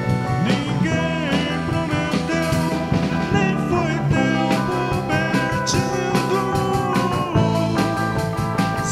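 Rock band playing: an electric guitar line with bent, sliding notes over bass guitar and drum kit with cymbals.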